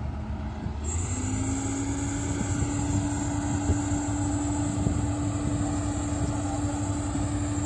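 Komatsu PC270 hydraulic excavator's diesel engine running with a steady drone over a low rumble; about a second in its tone steps up in pitch and a high thin whine joins and holds.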